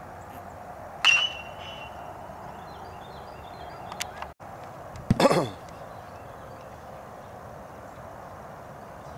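Metal baseball bat striking a ball about a second in: a sharp ping that rings briefly at one high pitch. Just after five seconds comes a louder, longer thump with a falling rumble.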